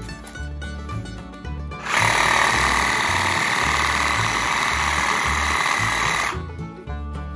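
Cordless power saw running steadily for about four seconds, starting about two seconds in, as it cuts through a small branch. Background music with a steady bass beat plays throughout.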